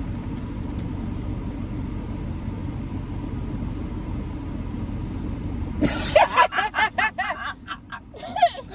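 Steady low rumble inside a parked car's cabin, from the running engine and air conditioning, that cuts off suddenly about six seconds in. Then a woman's loud burst of laughter, in quick repeated peals.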